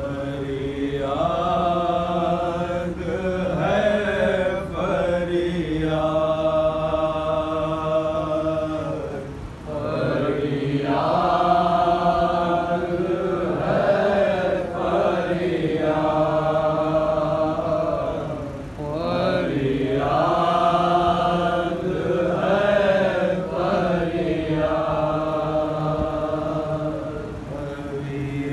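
Noha, a Shia mourning lament, chanted by men: long held melodic lines that glide up and down, with short breaks for breath about every nine seconds.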